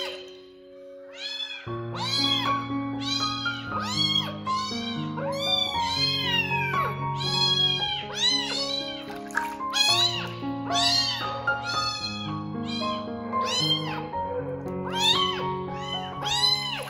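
Very young kitten meowing again and again while being bathed: short, high-pitched cries that rise and fall, one or two a second, over background music.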